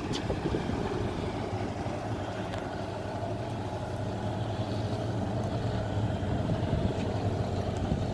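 Boat engine running steadily, a low even drone over the rush of wind and water.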